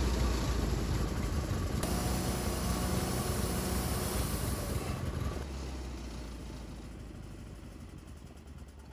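An engine running steadily. Its note shifts about two seconds in and again about five seconds in, then it grows quieter toward the end.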